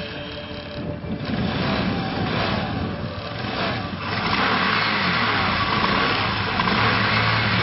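Vespa scooter engine running and being revved with the throttle, louder from about four seconds in, its pitch rising and falling with each twist of the grip.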